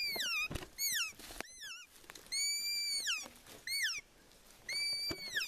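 Elk cow-style mews: a run of about eight high whistled calls, most sliding quickly downward, a few held briefly before dropping off. Low thumps of footsteps sound between them.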